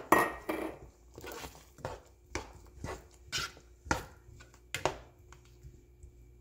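A wooden spatula stirring thick coconut-milk cassava curry in a metal saucepan, clacking against the pan on each stroke, about one stroke every half second to second. The first stroke is the loudest, and the strokes stop about five seconds in.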